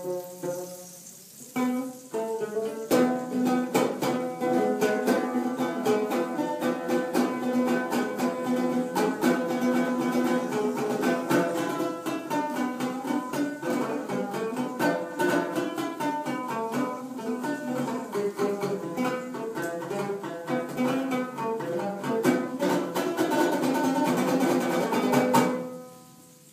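String instrument playing a fast melody of many quick notes. It comes in after a short pause about two seconds in and fades out near the end.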